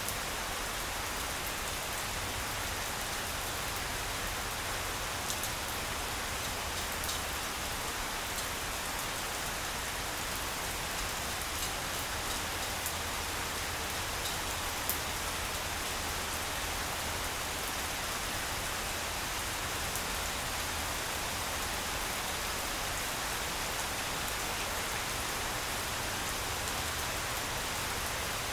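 Steady rain falling on a lawn, an even hiss with a few sharper taps of single drops.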